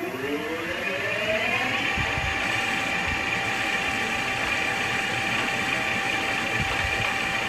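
Victor metal lathe spindle and chuck spinning up with a rising whine that levels off about a second and a half in, then running steadily at speed with a constant hum and whine.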